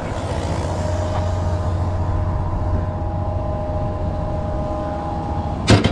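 Steady low drone of heavy machinery running, with a faint steady whine over it, and one sharp knock just before the end.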